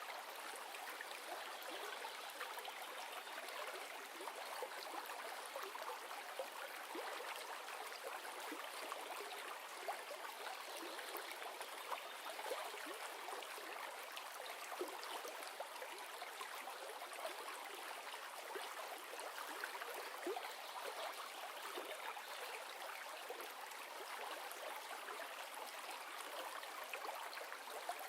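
River ambience: steady rushing and babbling water with fine splashy crackle, unchanging throughout.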